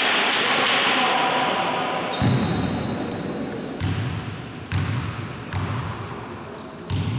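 A basketball is bounced on a wooden sports-hall floor five times at uneven intervals: a player's dribbles at the free-throw line before the shot. Crowd chatter and clapping die away in the first two seconds, and each bounce rings in the large hall.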